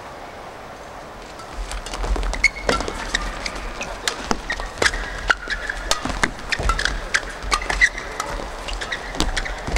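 Badminton doubles rally starting about a second and a half in: sharp racket strikes on the shuttlecock in quick, irregular succession, mixed with short squeaks of players' shoes on the court mat.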